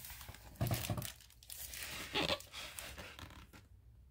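Pages of a picture book being turned and handled: paper rustling and sliding in a few short bursts.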